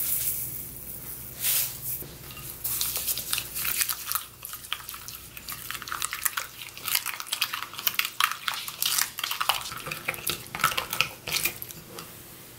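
A spoon stirring thick chili-paste sauce in a glass bowl, with irregular scraping and clicking against the glass.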